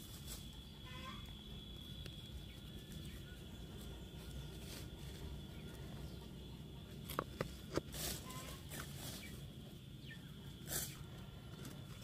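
Wooden trap pieces being handled and fitted together, with two sharp wooden clicks a little past the middle and a couple of softer knocks later. Faint animal calls are heard in the background.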